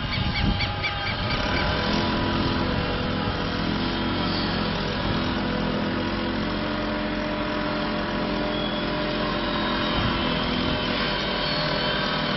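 An engine running steadily with an even hum, after a few sharp knocks in the first second.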